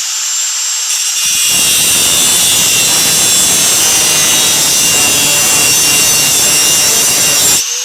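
High-speed power tool with a cutting wheel whining, then biting into the steel of a handcuff about a second and a half in and grinding steadily through the metal, which heats up as it cuts. Near the end the wheel lifts off suddenly and only the tool's high whine is left.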